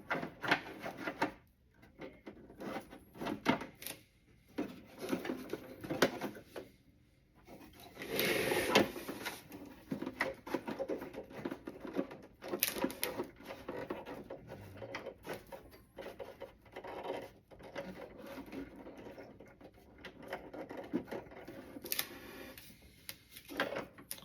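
Hands handling a plastic action figure and toy van: scattered small clicks, taps and rustles of plastic parts being moved and posed.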